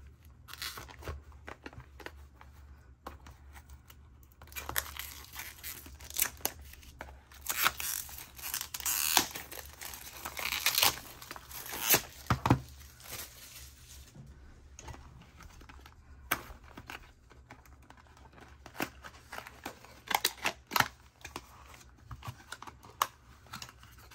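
Packaging being torn open and crinkled by hand while a small box of nail-remover cotton wraps is unpacked. The rustling is busiest in the first half, then gives way to scattered sharp taps and clicks as the box is handled.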